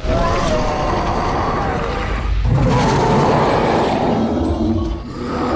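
Loud cartoon fight sound effects: a dense rumbling, booming noise with roaring, loudest about halfway through.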